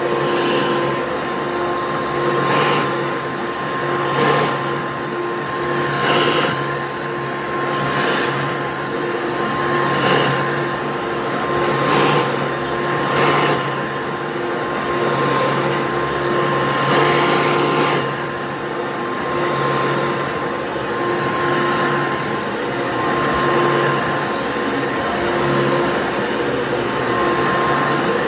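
Vacuum cleaner running over a rug with a steady motor hum, surging with a brief rush of air about every two seconds.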